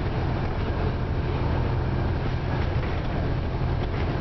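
Steady low drone of a 2009 Scania OmniCity single-deck bus's engine and running noise, heard from inside the passenger saloon, with a light click near the end.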